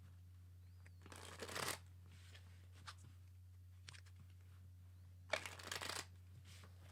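Tarot cards being shuffled in two short bursts, about a second in and again near the end, with a few light card ticks between. A steady low electrical hum runs underneath.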